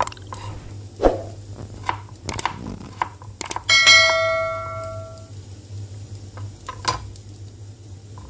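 Knife chopping aromatic ginger stems on a plastic cutting board: a few sharp knocks, spaced irregularly. About four seconds in, a single bright metallic ring like a small bell fades out over a second and a half, under a steady low hum.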